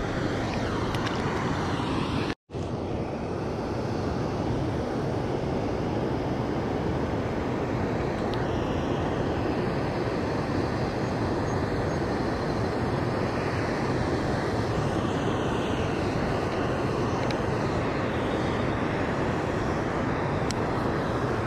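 Steady rushing of water pouring over a concrete spillway weir, an even noise that does not let up, broken only by a split-second dropout about two and a half seconds in.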